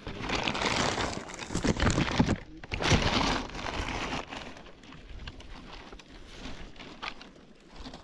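A clear plastic bag crinkling and rustling as it is handled close to the microphone, loudest in the first four seconds, then fainter rustling.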